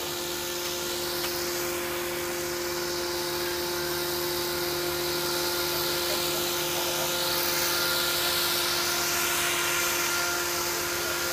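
Eachine Novice-I 75 2S FPV whoop in flight, its small motors and ducted propellers buzzing with a high-pitched whine that rises and falls with throttle and distance.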